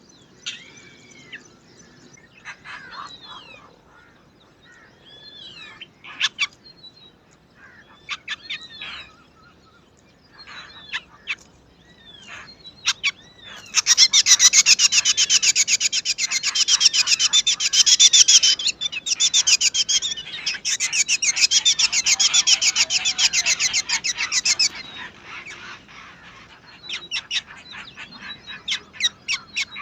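Black drongo birds calling: scattered short whistled chirps with swooping pitch, then about halfway through a loud, fast, unbroken stream of chick begging calls lasting about ten seconds, typical of hungry nestlings being fed. The rapid begging starts up again near the end.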